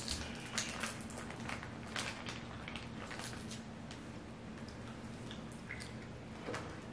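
Hands peeling and pulling apart shell-on seafood-boil shrimp and crab: scattered wet clicks and small cracks of shell, over a faint steady low hum.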